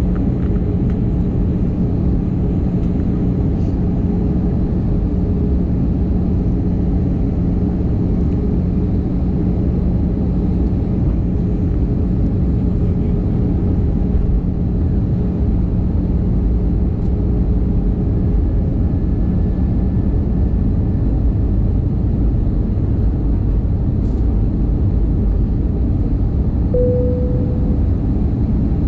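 Airliner cabin noise heard from a window seat beside the jet engine on the approach to landing: a steady, loud rumble of engine and rushing air. A steady hum fades out about two-thirds of the way through, and a brief tone sounds near the end.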